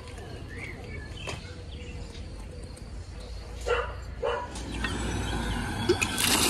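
A dog barks twice, about halfway through, over a steady low rumble, with a bird chirping once early on. Background music starts just before the end.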